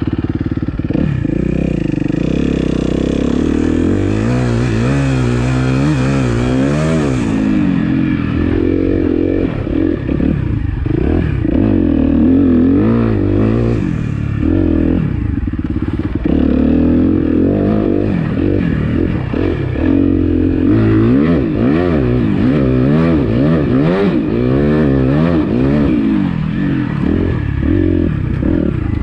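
Dirt bike engine, ridden, its revs rising and falling over and over as the throttle is opened and closed.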